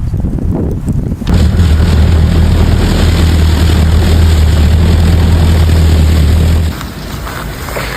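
A heavy engine running steadily: a loud, even low drone over a rushing hiss that starts about a second in and stops sharply near the seven-second mark.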